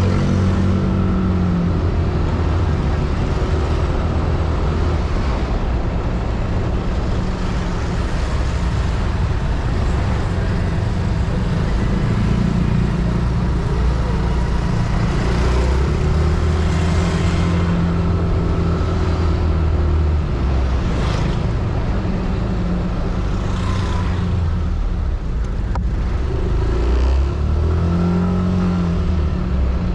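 Yamaha Aerox scooter's single-cylinder engine running under way, its pitch rising and falling several times as the rider speeds up and eases off, over steady road and wind noise.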